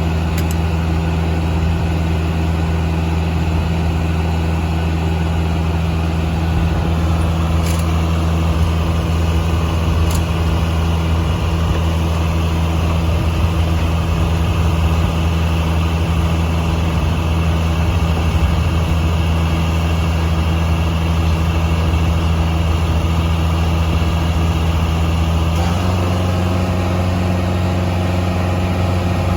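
Power unit of a Foley Belsaw circular sawmill running steadily, with a noisier stretch through the middle while the saw is at work. The engine note shifts slightly about 26 seconds in.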